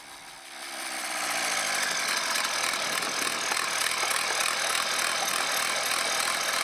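Volkswagen TDI turbo-diesel engine running at raised revs with its intake hose off. The pitch and loudness climb over the first two seconds, then hold steady as a dense rushing engine sound.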